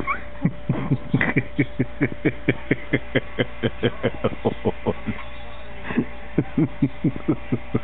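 A baby making a rapid string of short vocal sounds, each dropping in pitch, about four a second, with a brief pause a little past the middle before the string resumes.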